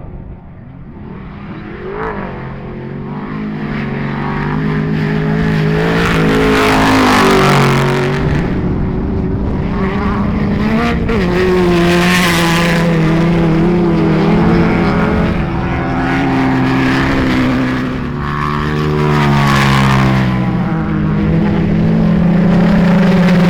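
Race UTVs (off-road side-by-sides) running flat out, engines revving up and down through the gears, with more than one engine heard at once at times. The sound grows louder over the first several seconds, then stays loud with a brief dip.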